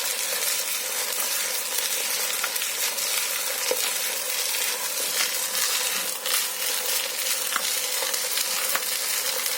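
Benchtop tumbling machine running: small parts and abrasive media rattling and hissing continuously inside the turning drum, over a steady motor hum.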